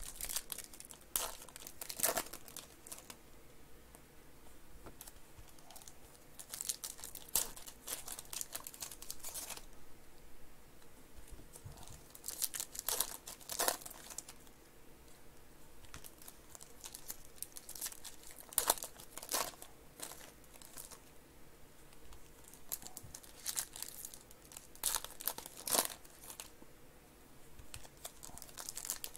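Shiny foil trading-card pack wrappers being torn open and crinkled by hand. The crackling comes in irregular bursts several seconds apart, with quieter handling between.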